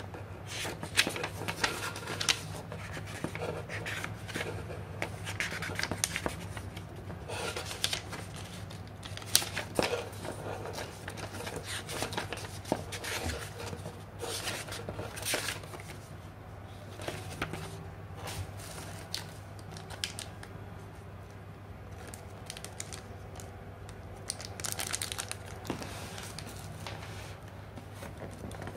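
Paper pages of a printed user-guide booklet rustling in irregular bursts as they are turned and handled. Near the end, a hand rummages in a cardboard box among bubble-wrapped parts and cables. A steady low hum runs underneath.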